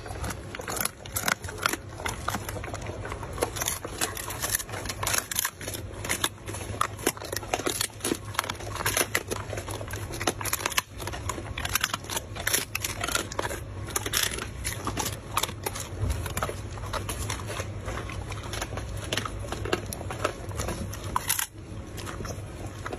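A golden retriever chewing a hard dried chew held in a hand, with a steady run of crunching and crackling bites.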